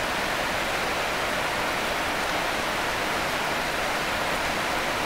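Steady rain falling, an even hiss with no single drops or gusts standing out.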